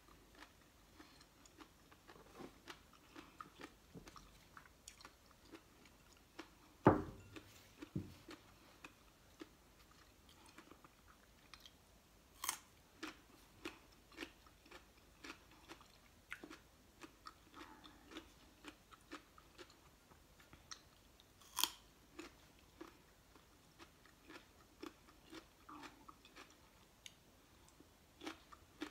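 Chewing and crunching of raw carrot sticks and other raw vegetables, in many small irregular crunches. A dull thump about seven seconds in is the loudest sound, and two sharp clicks come about twelve and twenty-two seconds in.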